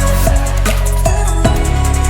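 Background music with a heavy bass line and a steady electronic drum beat.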